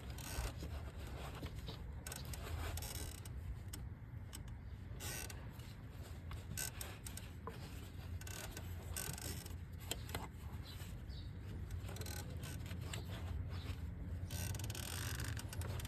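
Faint clicks, rattles and rubbing of hands and tools working on engine parts, over a low steady hum.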